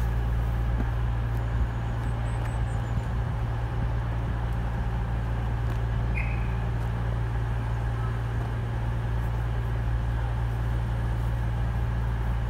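A CrossCountry Voyager diesel multiple unit idling at a platform, a steady low engine hum. A brief high chirp sounds about six seconds in.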